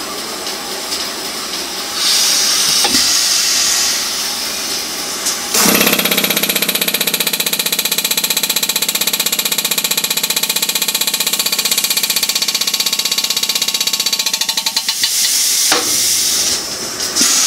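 Abrasive belt grinders running while a robot arm presses a metal casting against the belt to grind off the casting burrs. A higher hiss at first, then a loud, steady grinding sets in suddenly after about five and a half seconds and carries on until a sharp click near the end.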